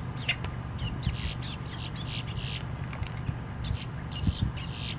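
Boat-tailed grackle calling: a sharp click, then a run of short, harsh notes, and a second group of notes near the end.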